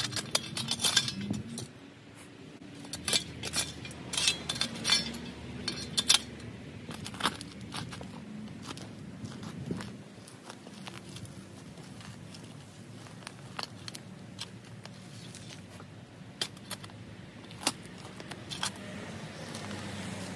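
Steel shovel blade driven and scraped into soil around a shrub's root ball: irregular sharp clinks and scrapes as it bites into dirt and roots, thick in the first several seconds, then sparser.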